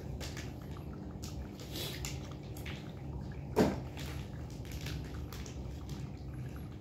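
Persian cat eating from a bowl: scattered small wet chewing and licking clicks. One louder thump about three and a half seconds in.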